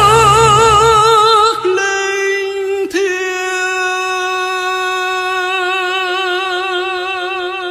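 A singer holds one long note with vibrato at the end of a song phrase. The backing accompaniment drops away about a second and a half in, leaving the voice alone as it slowly fades.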